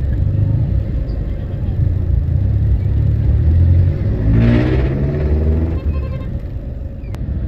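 Steady low rumble of idling street traffic heard from inside a car. About four seconds in, a nearby vehicle engine revs up, its pitch rising for about a second and a half, then drops back.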